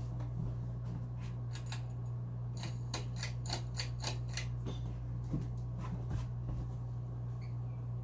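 Monte Carlo mini ceiling fan running with a steady low hum while its pull chain is worked: a run of sharp metallic clicks and chain rattles over a few seconds as the speed is changed.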